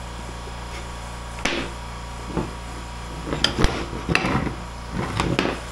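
A claw hammer knocks a plywood panel several times, sharply, to break it free of the plastic composite finish nails pinning it to the CNC spoil board. The knocks come mostly in the second half, over a steady background hum.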